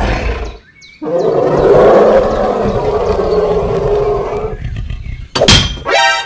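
A large animal's roar, used as a sound effect, lasting about three and a half seconds. A short rising whoosh-like effect follows near the end.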